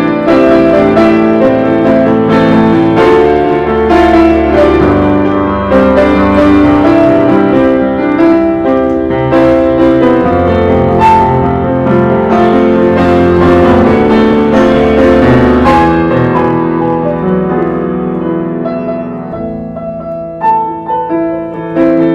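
Piano music with many notes sounding together, thinning out and growing quieter toward the end.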